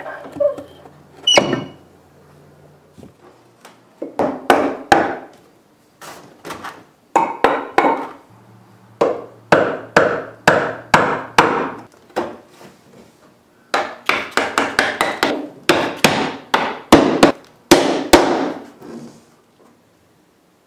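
Hammer tapping a nail set to drive nails into a wooden window jamb: several bursts of quick, sharp taps, with short pauses between them.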